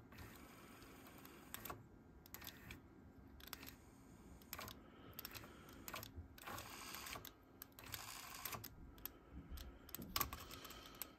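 Light, irregular clicks, a dozen or so, from the transport controls and mechanism of a Nakamichi 680ZX cassette deck being switched from mode to mode.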